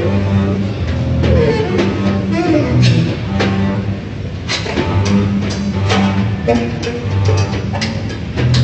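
Free improvisation by double bass, snare drum and saxophone: long low bass notes under scattered drum strikes and short saxophone lines.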